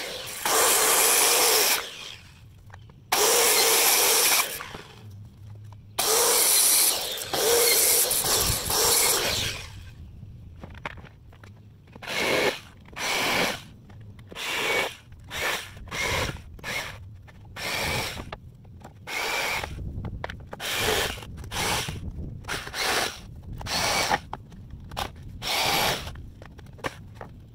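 Corded circular saw cutting plywood in four long runs over the first ten seconds. From about twelve seconds in, a jigsaw cuts in short bursts about once a second as its trigger is pulled again and again to work around the corners.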